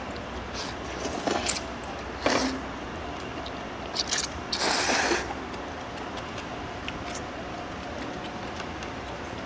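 Table sounds while eating: a few sharp clicks and knocks of utensils against dishes and one longer scrape about halfway through, over a steady low room hum.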